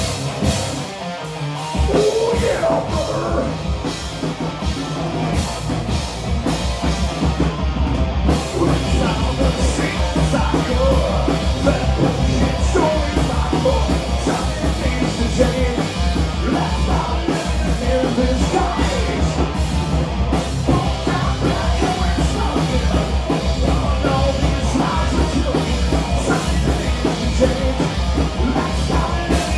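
Live heavy metal band playing loud, with guitars and a drum kit; the full band, bottom end included, comes in about two seconds in.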